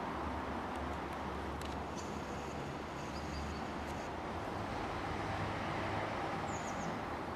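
Steady outdoor background noise: a continuous low rumble with hiss over it. A few faint high bird chirps come near the end.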